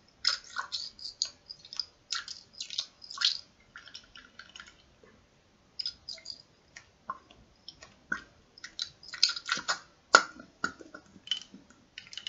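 Alcohol-based perfume blend swirled in a small glass container: irregular sloshing and splashing of the liquid with light clicks, in uneven bursts that ease off for a moment about four seconds in.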